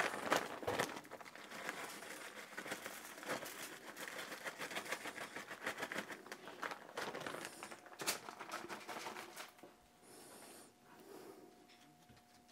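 Plastic bag of brown sugar crinkling as it is squeezed and shaken, sprinkling sugar over ribs on aluminium foil: a dense run of rapid small crackles that dies away about nine or ten seconds in.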